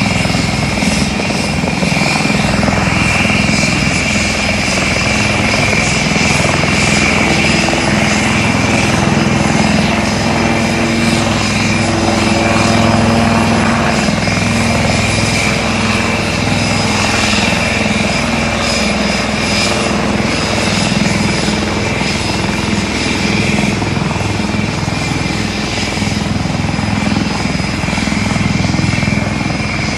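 HAL helicopter's rotors and turbine engines running at takeoff power as it lifts off the runway and climbs away: a steady rotor throb under a high turbine whine.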